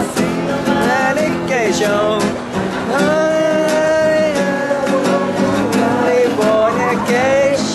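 Acoustic guitar strummed, with a man singing along in long held notes.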